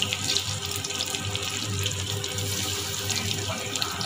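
Battered onion bajji deep-frying in hot oil in a kadai: a steady sizzling hiss scattered with small crackling pops.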